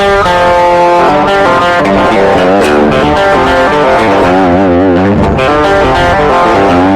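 Electric guitar with P90 pickups played through a JOYO Tai Chi R-02 low-gain overdrive pedal with gain and voicing at about 3 o'clock: overdriven chords and single notes that still sound clear. About four seconds in, a held note wavers with vibrato.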